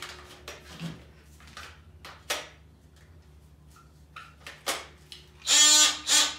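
Scattered plastic clicks and knocks from handling a DeWalt cordless power tool and its battery pack, then a brief loud pitched squeak about five and a half seconds in.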